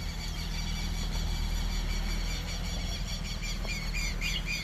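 Fiat Strada's 1.3 Firefly four-cylinder engine running at low revs as the pickup drives slowly off, with birds chirping over it.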